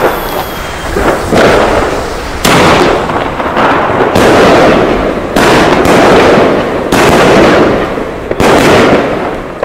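A 20-shot 30 mm Bonfireworks Brocade Rain fireworks cake firing its shells one after another. The loud, sharp bangs come about every one to one and a half seconds, each trailing off before the next.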